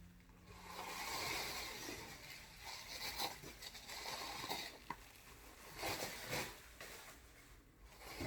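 Bubble wrap and packaging rustling and scraping as they are pulled apart by hand, with a few sharp clicks.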